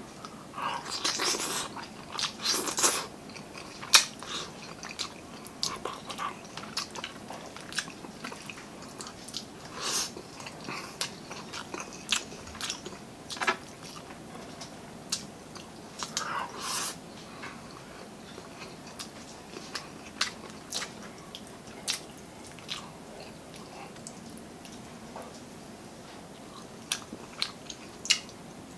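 Close-up eating sounds of a man chewing mouthfuls of rice and coconut-milk-stewed tilapia eaten with his fingers: many short wet clicks and irregular louder chewing bursts, the biggest near the start and about two-thirds of the way through.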